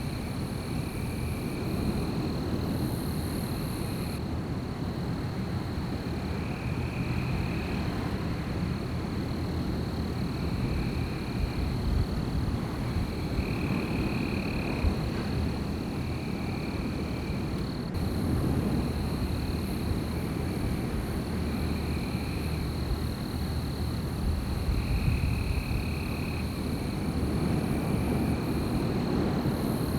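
Night forest wind ambience: a steady low rumble of wind, with a constant high trill and short calls that repeat every two to three seconds.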